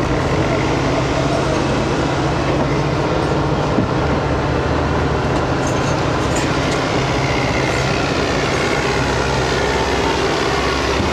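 Heavy engine running steadily, a loud constant drone with a low hum.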